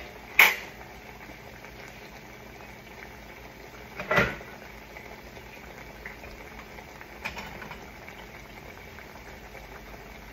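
Steady bubbling of food cooking in pots on an electric stove, broken by a few sharp knocks of cookware being handled: a loud one about half a second in, another about four seconds in and a smaller one near seven seconds.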